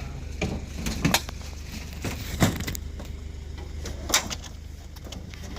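Scrap items knocking and clattering as they are shifted and stacked in a truck bed: a string of separate knocks, the loudest about two and a half and four seconds in, over a steady low hum.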